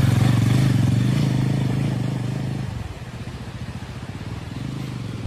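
Motorcycle engine running steadily, then dropping away and fading about halfway through, as if the bike moves off.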